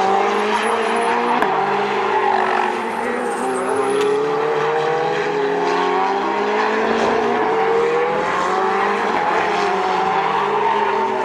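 Ferrari 488/458 Challenge race cars' V8 engines accelerating hard past the track, more than one at once, the pitch climbing through each gear and dropping at every quick upshift, several times over.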